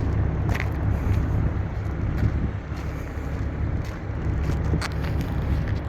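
Truck engine idling: a steady low rumble, with a few faint clicks.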